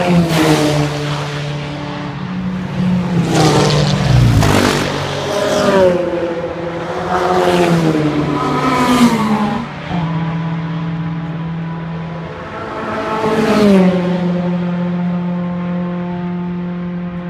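Race cars passing one after another at speed, about five in all. Each engine note swells and drops in pitch as it goes by, over a steady low engine drone.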